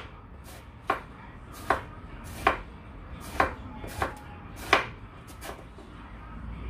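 Chef's knife chopping Korean zucchini (aehobak) on a wooden cutting board: about seven sharp knocks, one every three-quarters of a second or so, stopping about five and a half seconds in.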